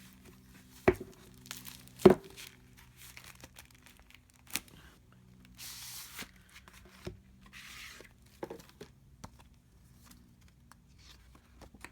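Plastic wrapping being torn and crinkled as an album package is opened, with two sharp knocks in the first couple of seconds and bursts of rustling later.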